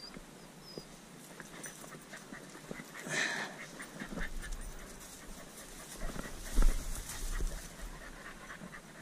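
A hunting dog panting close by, over footsteps and scuffs on loose limestone rocks and brush. There is a short rustle about three seconds in and a few louder knocks a little past midway.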